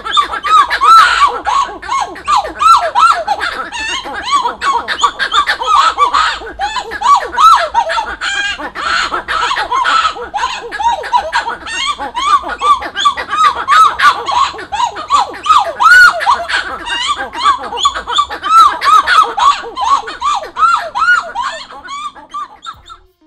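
A pair of titi monkeys (Callicebus) calling together in a loud duet: fast, overlapping, repeated notes that rise and fall in pitch. It fades out near the end.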